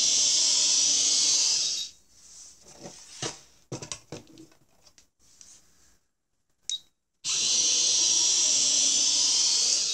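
Small electric motor of a coding-kit toy car whirring through its plastic gears as the scanned program runs the motor clockwise. It runs for about two seconds, stops, a few light clicks follow, and then it whirs again for about two and a half seconds near the end.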